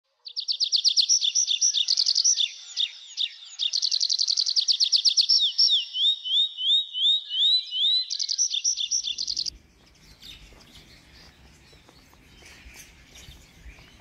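A songbird sings one long song of fast trills and runs of repeated rising whistled notes, then stops about nine and a half seconds in, leaving faint outdoor background.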